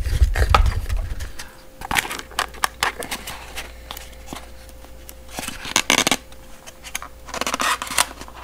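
Small cardboard product box being handled and its lid worked off: a run of light scrapes, clicks and rustles, with louder scraping about two seconds in, around six seconds and near the end.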